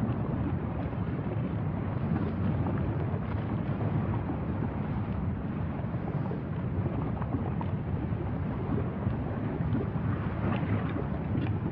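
Steady low rushing rumble of wind buffeting the microphone, with a few faint ticks about ten seconds in.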